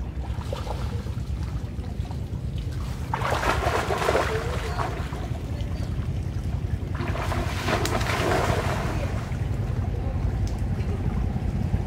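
Water splashing and churning as long-tailed macaques swim through floodwater, in two bouts about three and seven seconds in, each lasting about two seconds, over a steady low rumble.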